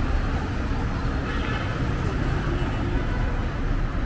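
City street traffic: cars and motorbikes driving past on a wet road, a steady rumble of engines and tyres.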